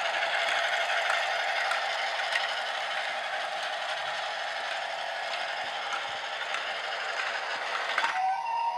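Motorised Lego Duplo train locomotive running round plastic track with a steady whirring rattle. About eight seconds in, the engine is pressed and stops, and a short electronic tone sounds.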